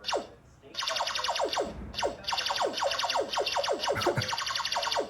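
Cheap electronic bike horn playing its sound effect: a rapid series of electronic 'pew' tones, each falling steeply in pitch, about four a second, in short groups with brief pauses between.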